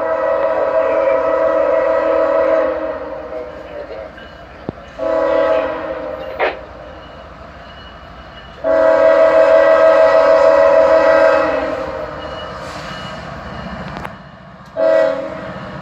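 Freight locomotive air horn sounding a chord in long and short blasts: a long blast, a short one about five seconds in, another long blast about nine seconds in, and a short one near the end. The approaching train's engine rumble grows over the last few seconds.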